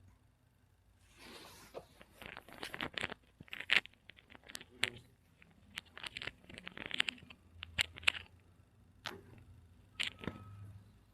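Irregular rustling and scraping of cloth, with many sharp clicks and taps, starting about a second in.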